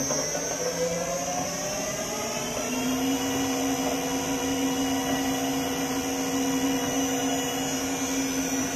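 Electric drive motor and gearbox of a 30-litre double sigma-blade kneader mixer running in reverse with the empty blades turning. Its whine rises in pitch over the first two to three seconds as the speed is brought up, then holds steady.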